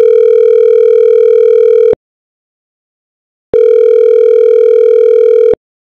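Loud synthetic electronic warning tone, a single steady buzzy pitch, sounding in two-second beeps with about a second and a half of silence between: twice here.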